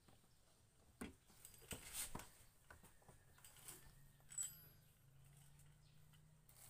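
Near silence with a few faint clicks and taps of small objects being handled.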